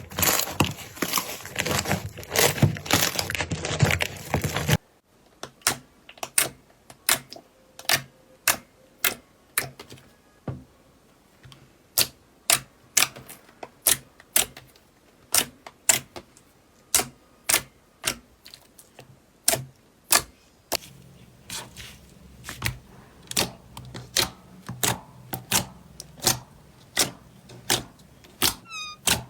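Slime being played with: a dense crackling crunch for the first few seconds that stops suddenly, then sharp clicking pops, about two a second, for the rest.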